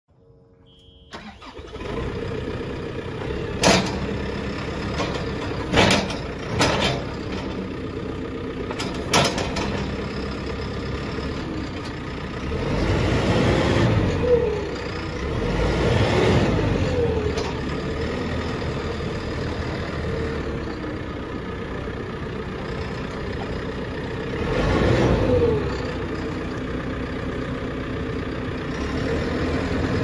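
2017 JCB 3CX backhoe loader's diesel engine starting and settling into a steady run. Four sharp clanks come in the first several seconds, and the engine swells louder twice, around the middle and near the end, as the machine drives off.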